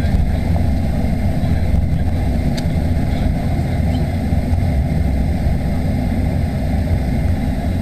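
Boeing 737-800's CFM56 engines at taxi power, heard inside the passenger cabin: a steady low rumble with no change in pitch.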